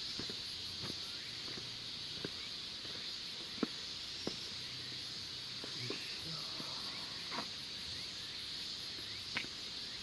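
Outdoor ambience dominated by a steady, high-pitched insect chorus, with scattered light clicks and ticks throughout.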